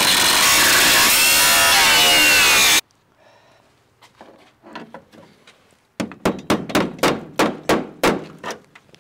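Angle grinder with a small cutoff wheel cutting through sheet steel with a loud whine, stopping suddenly about three seconds in. After a short pause comes a quick run of about ten hammer blows on the steel, roughly four a second.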